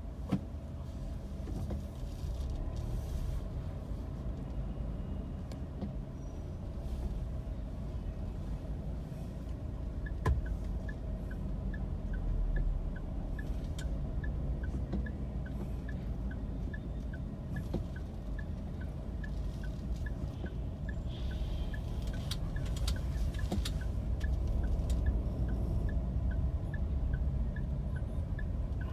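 Inside a car, a low engine and road rumble runs throughout. About ten seconds in, the turn-signal indicator starts ticking in a steady tick-tock, about two clicks a second, which means the driver has signalled a turn.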